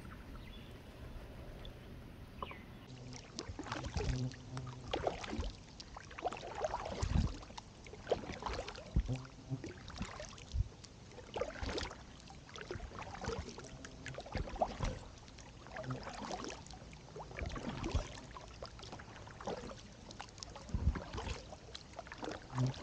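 Double-bladed kayak paddle dipping and pulling through calm river water, splashing and dripping stroke after stroke, about once a second, starting about three seconds in.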